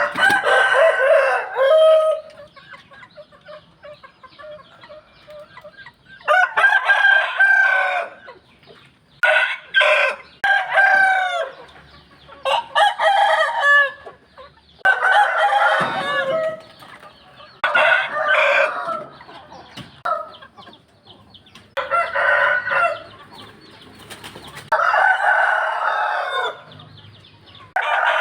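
Roosters crowing again and again, about nine crows each a second or two long, with quieter calls between them.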